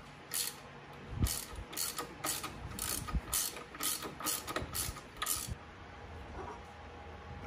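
Ratchet wrench clicking in short runs, about a dozen over the first five seconds, as the handle is swung back and forth to loosen a pulley bolt on the engine's front accessory drive. The clicking then stops.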